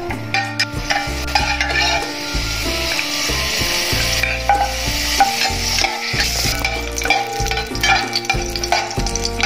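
Peeled garlic cloves frying and sizzling in hot oil in an aluminium pot, stirred with a metal spoon. The sizzling grows louder partway through, as the cloves go into the oil. Background music plays throughout.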